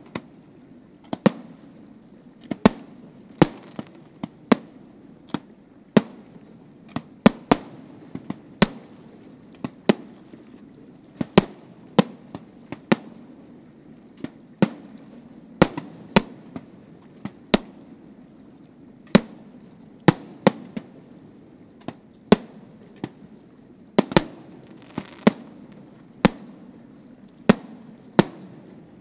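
Aerial firework shells bursting in a display: a long run of sharp bangs about one a second, some in quick pairs, with a low rumble between them.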